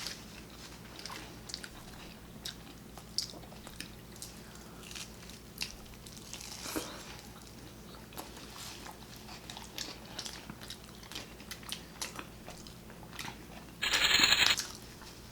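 People chewing and biting into sopes, with scattered small crunches and mouth clicks. A short, louder burst of crunching noise comes near the end.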